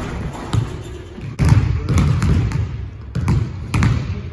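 Basketball bouncing on a hardwood gym floor in a run of irregular, sharp bounces.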